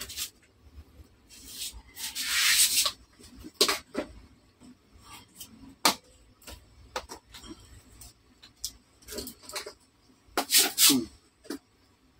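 Thin metal bezel frame of a Samsung LCD TV panel being pried loose by hand: a rasping scrape about two seconds in, then scattered sharp clicks and light knocks, the loudest group near the end.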